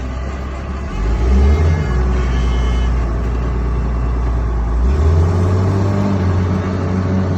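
A motor vehicle's engine running while driving, a steady low drone that steps up in pitch about five seconds in.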